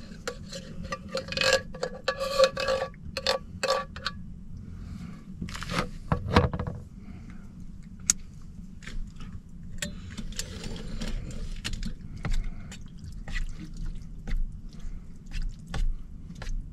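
A utensil scraping and clinking against a small metal camp pan as thick chili mac and meat are stirred and spooned in, with brief metallic ringing in the first few seconds and a steady low rumble underneath.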